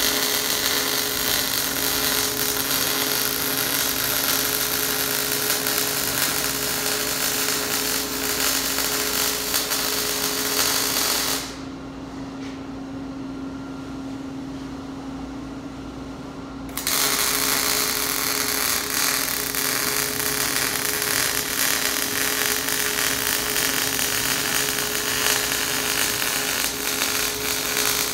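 Wire-feed arc welder laying beads on a steel axle housing tube: a steady crackle and sizzle from the arc. It stops about 11 seconds in, and for about five seconds only a steady low hum is left. Then a second long bead runs to near the end.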